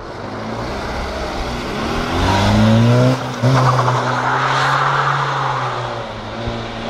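A car's engine revving up as the car accelerates hard past, rising in pitch. There is a brief break in the sound just after three seconds in. It then holds high revs and fades away as the car drives off.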